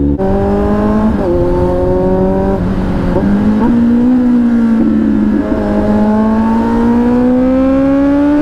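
Kawasaki Z900's inline-four engine pulling hard under acceleration. Its note rises and drops sharply at a few quick gear changes in the first few seconds, then climbs slowly and steadily as the bike gathers speed.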